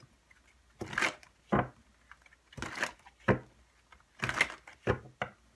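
A deck of tarot cards shuffled by hand: about six short, sharp bursts of cards slapping and riffling together, with brief pauses between them.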